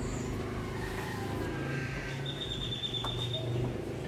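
Steady low hum of an engine or motor running in the background, with a high wavering tone lasting about a second near the middle.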